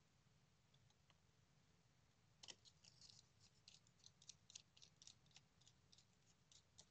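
Faint, uneven run of small clicks and ticks, starting about two and a half seconds in, as a small screw is turned into the corner of a Proxmark3's stacked circuit boards.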